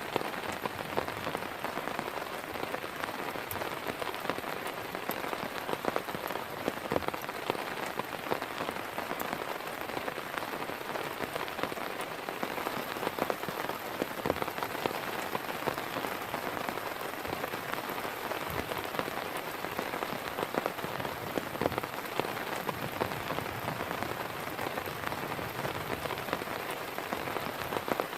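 Heavy rain falling steadily, with many sharp separate drop hits close by.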